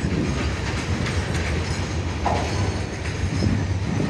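Freight train of open box wagons rolling past, wheels clattering over the rail joints with a steady low rumble. A brief higher squeal comes a little past two seconds in.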